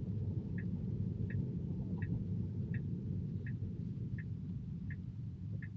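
A Tesla's turn-signal indicator ticking evenly, about three ticks every two seconds, over the low rumble of road noise inside the cabin.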